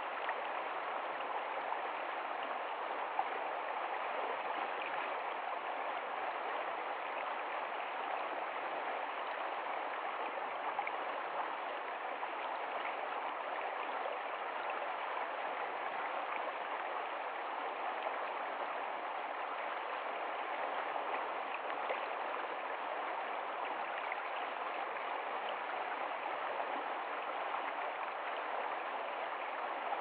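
Shallow rocky stream rushing and splashing over stones in a steady, even flow.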